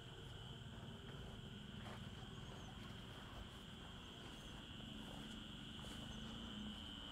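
Crickets trilling steadily, faint, over a low rumble, with a few soft clicks and rustles of footsteps through weeds.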